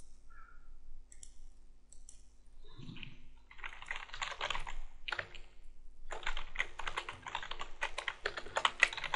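Typing on a computer keyboard: a few scattered key clicks, then a fast, continuous run of keystrokes from about three and a half seconds in.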